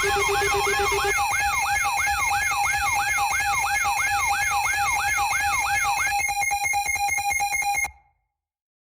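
Electronic emergency alert alarm: a siren-like tone sweeping up and down nearly three times a second over a steady high tone. About six seconds in it changes to rapid pulsing beeps, then cuts off suddenly.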